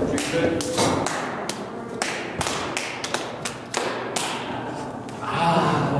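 Hands slapping and clapping together in a quick, irregular series of sharp smacks: an elaborate handshake routine between two people.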